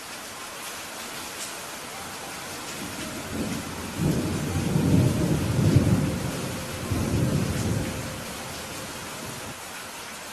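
Steady heavy rain hissing, with a long rumble of thunder that builds about three seconds in, is loudest around the middle, swells once more and then fades away.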